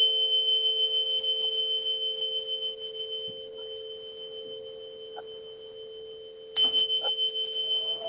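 A high-pitched tuning fork struck and left ringing, one pure tone that pulses as it slowly fades, then struck again about six and a half seconds in. Under it a steady low drone of two close tones keeps sounding.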